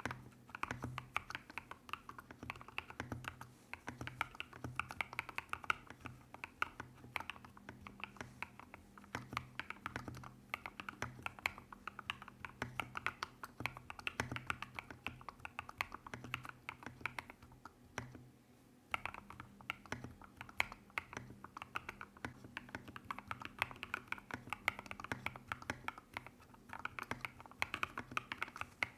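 Continuous fast typing on a modded Royal Kludge RK100 mechanical keyboard fitted with factory-lubed MMD Princess switches and Milktea Bear MOA-profile keycaps: a dense stream of key clacks with a brief pause about two-thirds of the way through.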